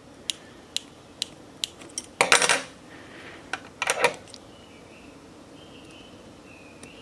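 Metal scissors clipping into a fabric seam allowance: a run of light, evenly spaced clicks, then two louder metallic clatters about two and four seconds in.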